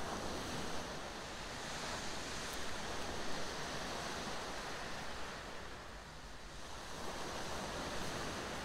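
Sea waves breaking and washing up a shingle beach. One surge eases off about six seconds in before the next wave builds.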